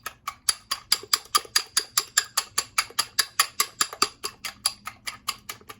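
Eggs being beaten in a bowl with a fork or chopsticks, the utensil clicking against the bowl in a quick steady rhythm of about five strokes a second, stopping just before the end.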